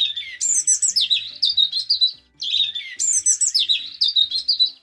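A robin singing: two quick, warbling high-pitched phrases of about two seconds each, with a short pause between them.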